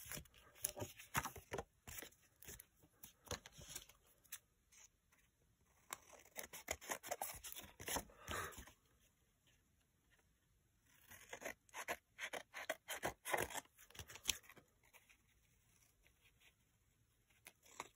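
Scissors cutting old book paper, with the paper rustling as it is handled: short clicking snips in several spells with quiet pauses between.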